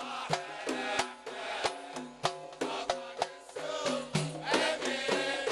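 Instrumental passage of an Arabic patriotic song: a steady drum beat of about three strokes a second under a pitched melody instrument, with no singing.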